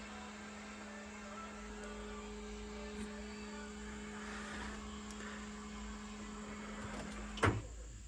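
A steady, even electrical hum from the school bus with its power switched on and the engine not yet started. The hum stops with one sharp click about seven and a half seconds in.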